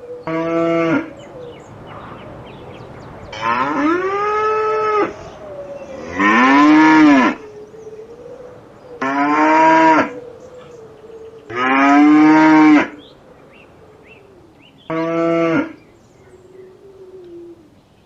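Cattle mooing: six separate moos, each lasting about one to two seconds, several rising and then falling in pitch. A fainter drawn-out call carries on between them.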